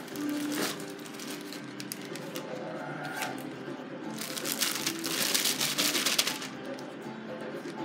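Soft ambient radio music with held tones, and plastic bag crinkling for about two seconds midway.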